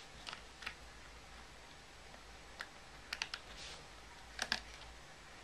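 Light clicks and taps of a small screwdriver and tiny screws handled against a white MacBook's plastic bottom case, while its screws are undone. There are a few single clicks, a quick run of three about three seconds in, and a louder double click near the end.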